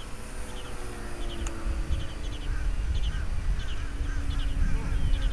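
Birds calling in short repeated chirps, about two a second from around two seconds in, over a faint steady drone that slowly falls in pitch from the RC A-10 Warthog model jet passing high overhead. Wind rumbles on the microphone.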